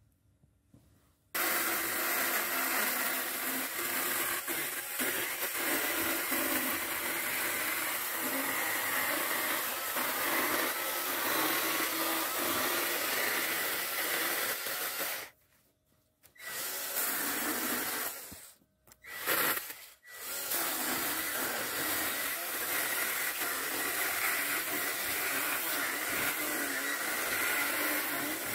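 Worx WG324E 20 V cordless pruning chainsaw running and cutting into a wooden stump: a steady electric motor and chain whine that starts about a second in. It breaks off briefly a few times around the middle, then runs on again.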